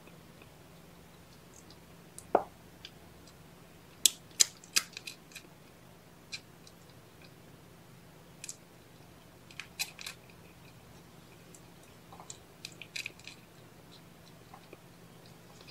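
Cats grooming: scattered wet licking and smacking clicks, in clusters about four, ten and thirteen seconds in, with one dull bump a little over two seconds in, over a faint steady hum.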